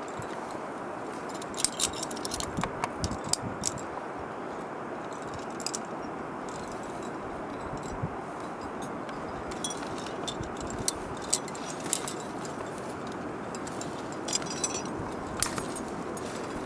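Metal climbing gear (carabiners and quickdraws on a climber's harness) clinking and jangling in scattered bursts as the climber moves, over a steady background hiss.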